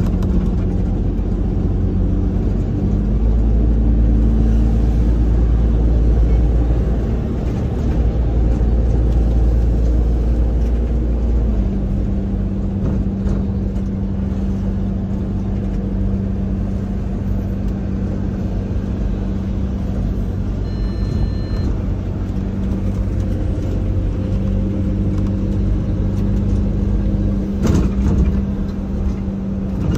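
Bus drivetrain running, a steady low hum heard from inside the passenger cabin. It is heavier for several seconds early on, then settles into a lower, even tone. A short electronic beep sounds about two-thirds of the way through, and there is a brief clatter near the end.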